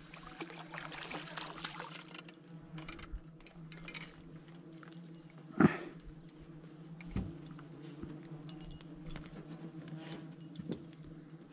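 Spinning tackle clinking and clicking: the metal spoon lure and treble hook rattling as a freshly caught ide is brought in and handled. There are two sharp knocks a little past halfway, over a low steady hum.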